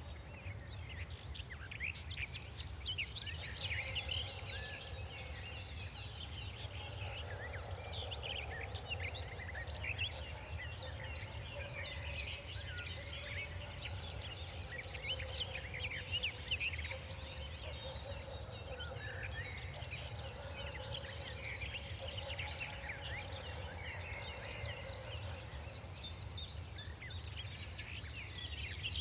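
A chorus of many birds chirping at once, dense overlapping short chirps and quick whistled notes without pause, over a steady low background rumble.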